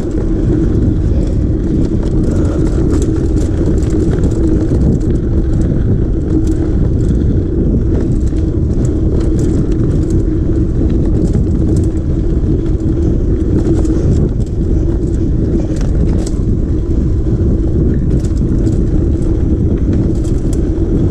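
Mountain bike rolling over a rough trail, heard from a camera worn by the rider: a steady low rumble with a constant hum and scattered rattling clicks.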